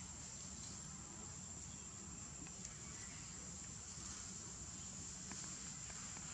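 Steady high-pitched insect chirring over a low background rumble, with a few faint ticks.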